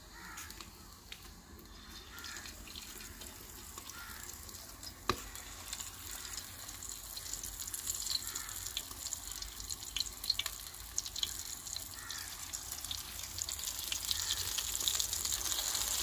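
Coated potato-and-pea patties frying in hot oil in an aluminium pan: a sizzling hiss that grows louder as more patties are slipped in. One sharp click about five seconds in.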